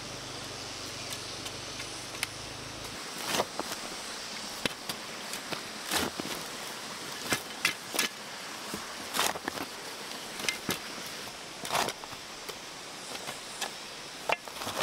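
Hoe and shovel blades chopping into loose soil: separate dull strikes about every second or so, uneven in timing.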